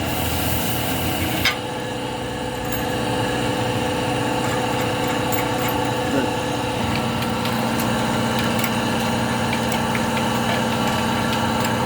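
A motor running steadily, with a sharp click about a second and a half in and a few light ticks. A second steady hum joins it about seven seconds in.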